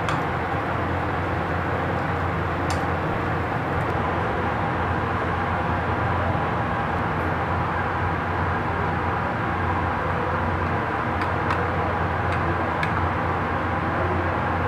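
Steady, even background roar with a few faint clicks scattered through it.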